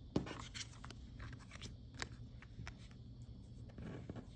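Faint scattered clicks and light taps of stiff glossy photo cards and sticker sheets being handled and slid about on a plastic cutting mat.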